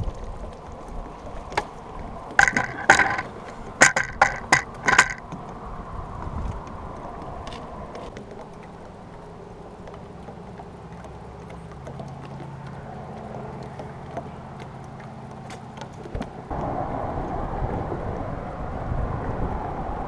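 About six sharp knocks with a ringing tone, as a crappie is netted and the landing net and fish bang against the small boat. Then a low, steady noise of wind and water that grows louder near the end.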